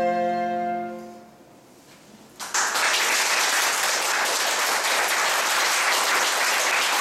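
A chamber ensemble of strings, winds, horn and piano holds its final chord, which fades out about a second in; after a brief hush the audience breaks into applause about two and a half seconds in and keeps clapping.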